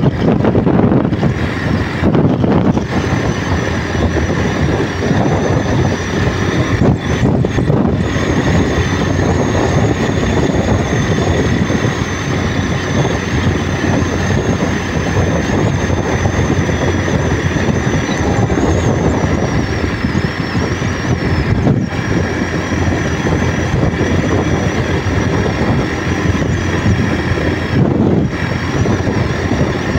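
Motorcycle riding at speed: steady engine and road noise with wind rushing over the microphone, and a thin high whine that wavers in pitch through most of it.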